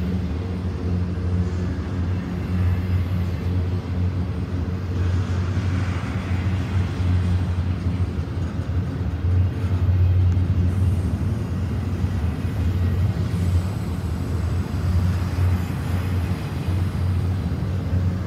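Double-stack container train rolling past at trackside: a steady, loud low rumble of the well cars' steel wheels on the rails, with a low drone underneath.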